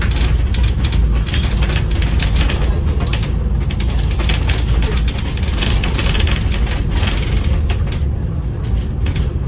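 Inside the upper deck of a moving double-decker bus: a steady deep engine and road rumble, with light rattles coming and going.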